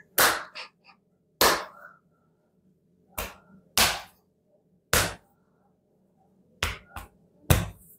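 Sharp slaps of a hand striking a person's bare back during percussive spinal treatment by a bone-setter. There are about eight blows at uneven intervals, with a couple of lighter ones among them.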